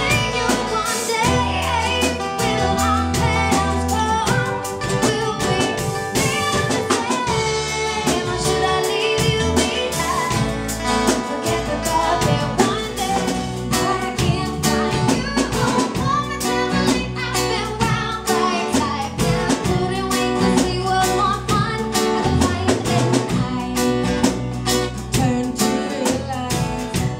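Live band music: a woman sings lead over a strummed acoustic guitar, with a drum kit playing along.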